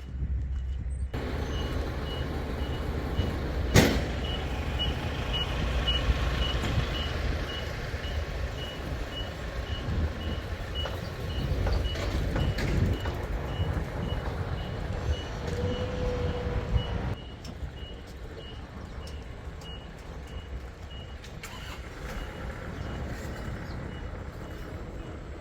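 Combine harvester engine running, with a steady high electronic warning beep sounding about twice a second. A single sharp knock comes about four seconds in.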